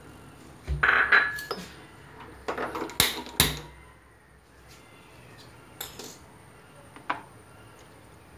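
Kitchenware clattering at a gas stove: a run of knocks and clinks from a pan and dishes being handled, with two sharp clicks near the middle, then a couple of faint clicks near the end.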